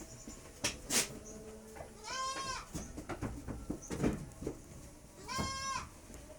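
Goat bleating twice, each a short, high call of about half a second, a few seconds apart. Two sharp clicks or knocks come just before the first bleat.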